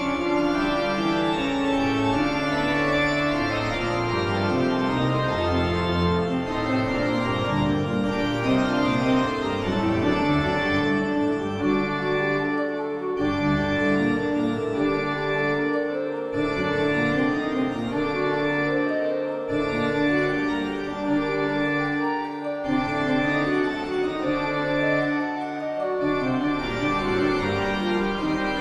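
Organ music with sustained chords over a bass line that moves every few seconds, in a slow, eerie horror-soundtrack style.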